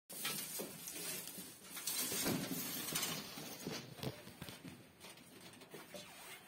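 A doe rabbit rustling and scratching through straw in a wooden nest box, building her nest ahead of giving birth. The rustling is loudest in the first three seconds and dies down as she moves off.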